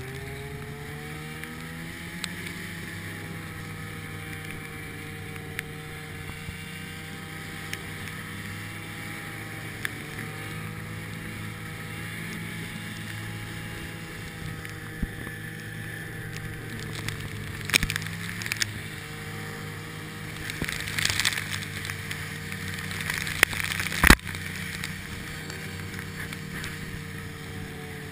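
Polaris Indy Widetrak snowmobile engine running at a steady pitch while the sled carries its riders over snow, the pitch rising a little in the first couple of seconds. From about two-thirds of the way in come several sharp knocks and rattles from the ride.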